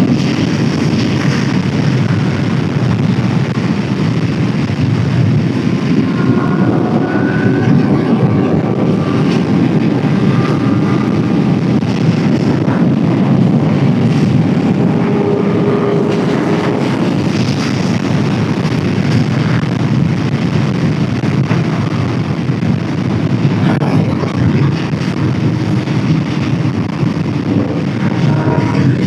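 Suzuki GSX-R600 inline-four sport bike riding at speed: steady engine drone buried in heavy wind rush on the microphone. The engine pitch climbs a couple of times as the bike accelerates.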